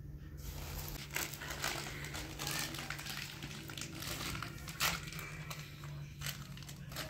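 Irregular crinkling and rustling handling noises, with a sharp knock about five seconds in, over a steady low hum.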